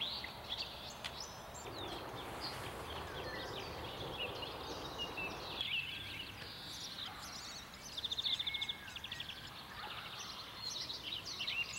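Small birds singing and chirping, with a fast rattling trill about eight seconds in, over a soft rushing background noise that cuts off abruptly about halfway through.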